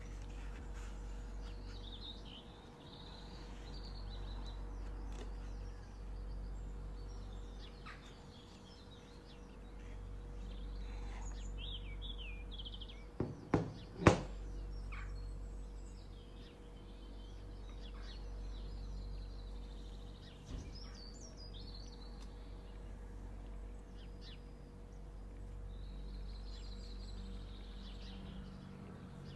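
Birds chirping over a steady low hum. About halfway through, three sharp knocks, the last the loudest, as a glass perfume bottle is set down on a wooden table.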